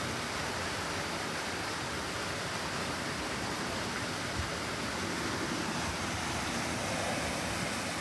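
Steady rush of a rockwork waterfall pouring into a pond.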